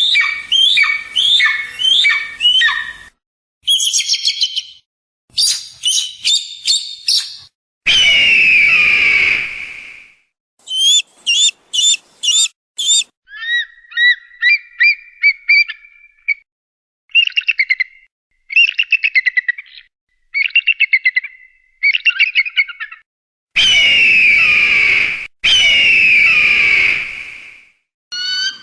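Eagle calls in a series of separate bouts: strings of short, high, sliding whistled notes and rapid chattering trills, broken by long, harsh, falling screams, once about eight seconds in and twice near the end.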